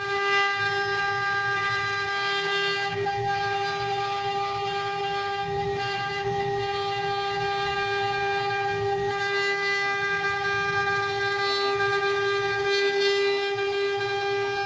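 CNC engraving machine's high-speed spindle running with a steady, unchanging whine, over a low uneven rumble.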